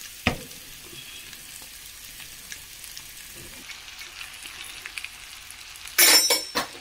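Wooden spoon stirring food in a metal pan over a faint, steady sizzle, with a single knock just after the start. Near the end, a loud burst of scraping and clatter as cooked pasta is mixed into the sauce.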